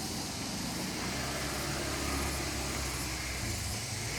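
A steady low engine hum, like a motor vehicle running, over outdoor background noise; it fades near the end.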